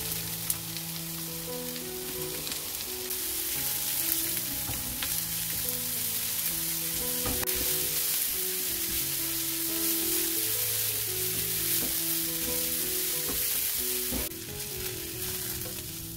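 Sliced onions sizzling as they fry in a nonstick frying pan, stirred with a silicone spatula; the sizzle falls away near the end.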